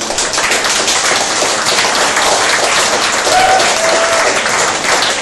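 Audience applauding at the end of a piece, the clapping breaking out suddenly and running on as dense, steady applause.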